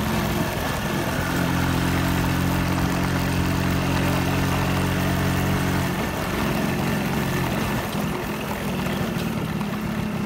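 Small engine running, steady for several seconds, then its pitch wavers and varies from about six seconds in.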